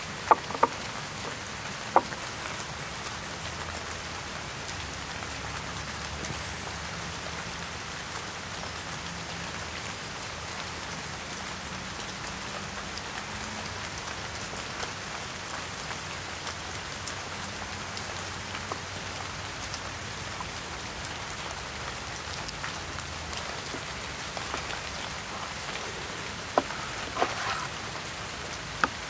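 Steady rain falling, an even patter throughout, with a few sharp taps about half a second and two seconds in and again near the end.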